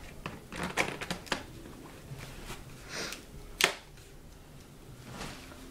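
Handling a new laptop's plastic case: scattered clicks and taps with some rustling, and one sharper click about three and a half seconds in.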